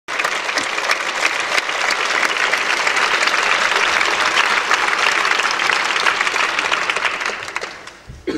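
Theatre audience applauding, a dense steady clapping that starts abruptly and dies away near the end.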